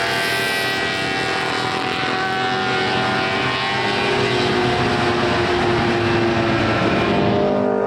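Honda six-cylinder four-stroke Grand Prix racing motorcycle engine running at high revs, its many-layered note sliding slowly down in pitch. Near the end a lower, steadier engine note takes over.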